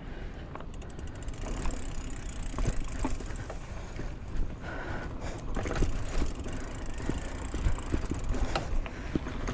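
Mountain bike rolling over a dirt singletrack: tyre noise with the bike rattling and knocking over bumps, and wind rumbling on the microphone. A brief run of rapid freewheel ticking about a second in.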